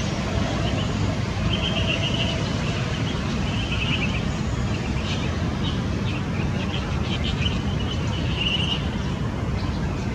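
Eurasian tree sparrows chirping in short, repeated buzzy notes, about one a second, over a steady low background rumble.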